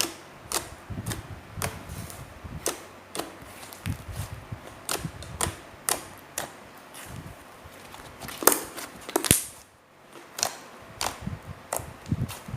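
Hands squeezing and stretching soft DIY slime, making a string of sharp pops and clicks about two a second, with a louder, longer squelch a little past the middle.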